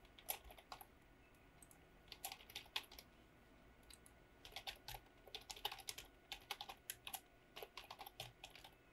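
Faint typing on a computer keyboard: a short run of keystrokes about two seconds in, then a longer run from about four and a half seconds to near the end.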